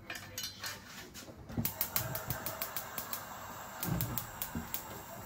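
Gas hob burner being lit: the knob is turned and the igniter clicks in a rapid series of sharp ticks until the gas catches about four seconds in.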